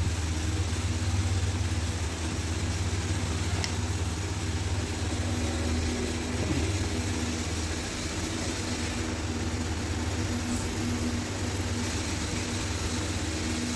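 A motor or engine running steadily, a low, even hum with a few steady tones above it.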